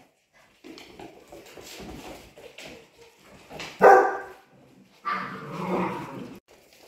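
Polish Hunting Dogs barking: one short, loud bark just before four seconds in, then a longer bark about a second later, over quieter scuffling of the playing puppies.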